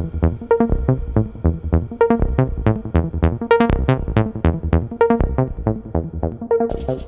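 Electronic dance music with a steady, driving beat and a repeating synth pattern; near the end a bright, high layer comes in.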